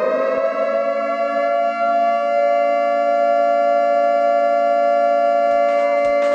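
A long, siren-like electronic tone, settled onto one steady pitch after a rising glide, from a dance-music mix played over a sound system. Faint beat strokes come in near the end.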